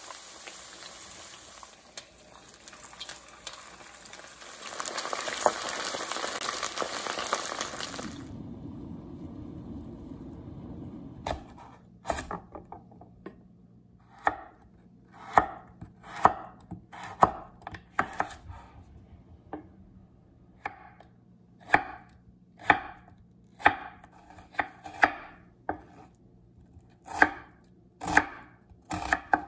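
Battered pork strips sizzling as they deep-fry in hot oil, for about the first eight seconds. Then, from about eleven seconds in, a knife cuts carrot and then onion on a wooden cutting board: sharp knocks about one a second.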